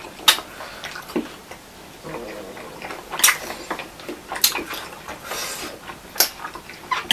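Close-up eating sounds of chow mein noodles: chewing and slurping, with a few sharp clicks of chopsticks against plates or mouths.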